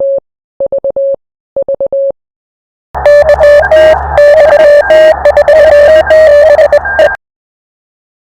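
Morse code sent as a single tone of about 600 Hz, keyed in dots and dashes, spelling an amateur radio callsign. For about the first two seconds it sounds clean in three short groups with dead silence between them. About three seconds in it comes back louder for some four seconds, keyed over radio static and hum, then stops.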